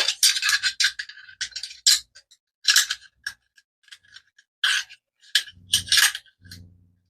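AR-platform rifle parts being fitted together by hand: a string of sharp metallic clicks and scrapes as the charging handle and bolt carrier group go into the upper receiver, with a couple of duller knocks near the end.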